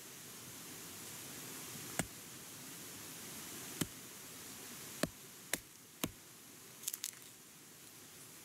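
Sharp snaps heard one at a time about every second, then three in quick succession near the end, over a steady hiss.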